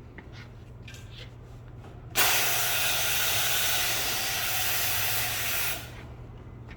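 Compressed air hissing at a tire valve, starting abruptly and cutting off after about three and a half seconds, over a steady low hum.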